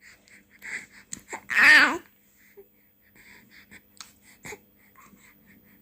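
Three-month-old baby cooing: one loud vocal sound with a wavering pitch about a second and a half in, lasting about half a second. Faint short clicks and small vocal sounds come before and after it.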